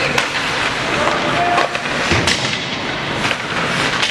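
Hockey game heard from the stands: a steady arena din with crowd voices, broken by scattered sharp knocks and clacks of sticks and puck against the boards, the loudest about two seconds in.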